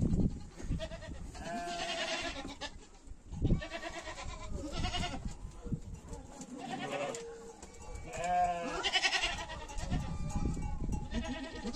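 Goats bleating, about seven wavering calls one after another.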